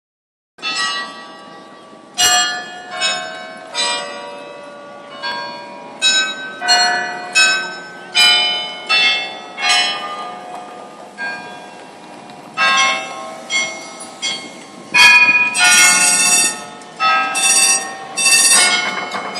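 Bells ringing about once a second: single dings at differing pitches, each dying away within about half a second, over a steady low street hum. About three-quarters of the way through, several rings come close together and run into one another.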